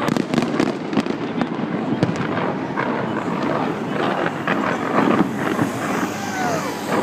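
Large fireworks display: a dense, irregular run of bangs and crackles.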